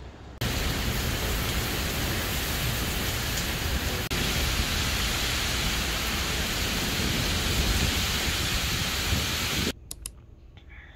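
Heavy rain pouring down, a loud steady hiss with a deep rumble beneath it. It starts suddenly just after the start and cuts off abruptly about a second before the end, leaving a few faint clicks.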